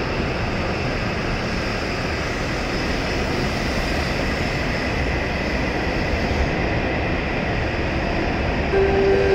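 W7 series Shinkansen train pulling out of the station past the platform: a steady running rumble of the moving cars. A steady tone comes in near the end.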